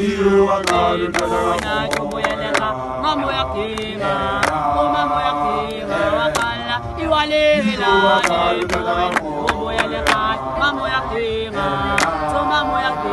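A group of young men singing igwijo, a Xhosa unaccompanied group chant, in full-voiced harmony, with sharp hand claps scattered through the song.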